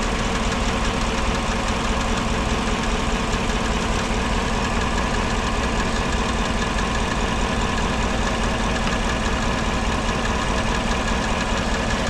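2014 GMC truck's 5.3L V8 idling steadily with its number-one cylinder misfiring. That cylinder gets no spark at all, and a bad ignition coil is suspected.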